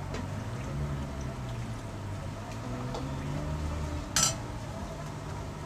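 Liquid seasoning poured from a bottle into a wide pan of small fish simmering in chili sauce, over a steady low hum. About four seconds in there is a single sharp metal clank of the spatula against the pan.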